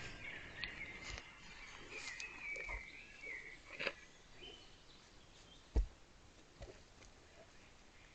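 Wild birds singing outdoors, with a few short low thumps, the loudest about six seconds in.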